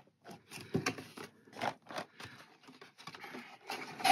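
A small cardboard and plastic model-train box being handled and closed by hand: scattered light taps, scrapes and rustles.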